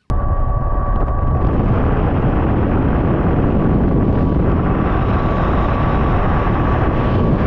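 Bass boat running fast on the plane, its outboard motor pushing hard, heard as a loud, steady rush of wind and water on the microphone with a thin, steady high whine. It cuts in suddenly just after the start.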